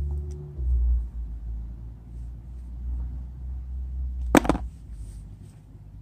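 A low rumble of handling or wind noise on the microphone, with one sharp knock about four and a half seconds in.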